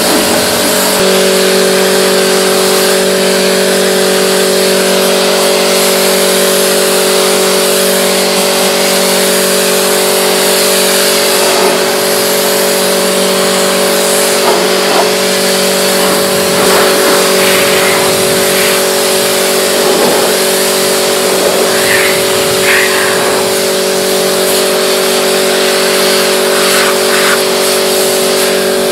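Pressure washer running steadily: a constant motor hum under the hiss of the water spray.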